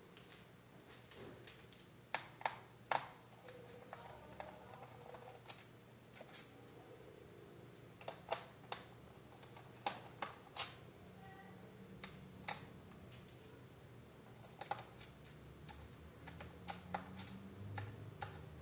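Irregular sharp clicks and taps of a laptop's hard plastic case and small parts being handled, over a faint low hum.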